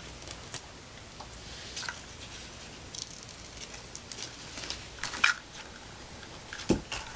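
Handling of ribbon and scissors: scattered small clicks and rustles, with a sharp scissors snip cutting the ribbon about five seconds in and a soft thump near the end.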